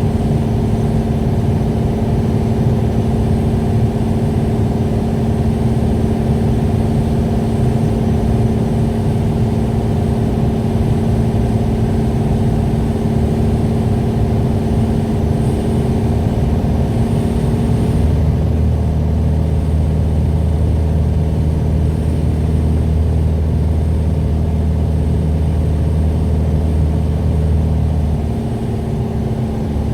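Piper PA-28 light aircraft's piston engine and propeller running steadily with a constant drone. About two-thirds of the way through the tone shifts and a deeper hum comes in, and near the end the sound dips briefly and changes again.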